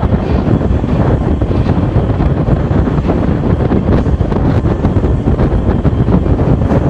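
Storm waves surging and breaking against a concrete seawall, with strong wind buffeting the microphone in a steady, loud rumble.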